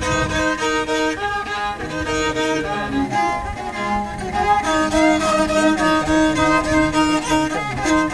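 Violin music: a bowed fiddle plays a melody over steady held notes, with a lower accompaniment beneath.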